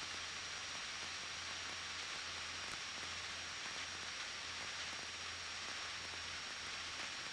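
Steady hiss with a faint low drone underneath: the background of a Cessna 172 cockpit's intercom audio with nobody talking. The engine comes through only as the dull low part.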